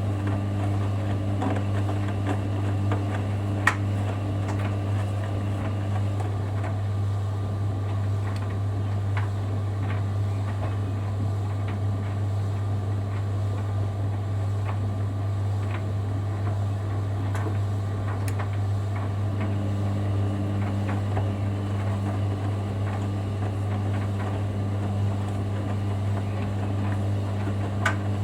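Hoover Dynamic Next front-loading washing machine in its wash phase: a steady hum, with the drum motor's tone dropping out about six seconds in and starting again some thirteen seconds later as the drum pauses and turns again. A few sharp clicks from the drum come through now and then.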